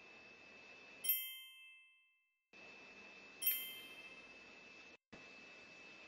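Two clear, bell-like chime strikes a little over two seconds apart, each ringing out and fading, over faint steady hiss from the camera's microphone.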